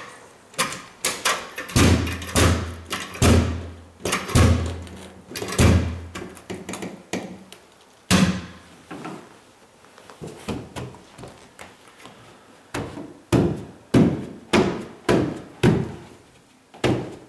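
Carpet knee kicker being bumped to stretch loose carpet onto the tack strip: a run of sharp thuds, two to three a second, a quieter stretch of several seconds in the middle, then another run of thuds near the end.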